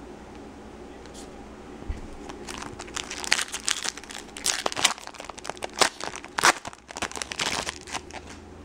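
Foil wrapper of a baseball card pack being torn open and crinkled by hand: a dense run of crackling that starts about two seconds in and goes on until just before the end.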